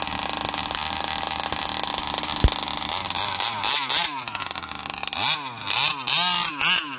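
The Rovan Q-Baja RC buggy's new, not-yet-run-in 29cc two-stroke petrol engine runs steadily after starting, with a single thump about two and a half seconds in. From about halfway it is revved up and down several times in quick throttle blips.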